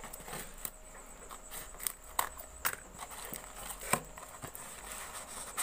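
Scissors cutting open a small cardboard parcel box, then the cardboard and paper wrapping being handled: a string of irregular sharp snips and clicks.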